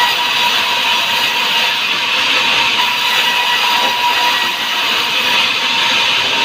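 Sawmill saw running steadily through hard wood: a loud, even, high noise with a faint steady whine and no breaks.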